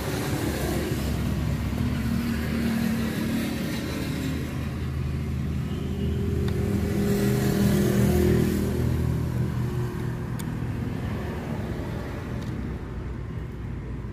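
A motor vehicle engine running steadily, growing louder about halfway through and easing off again.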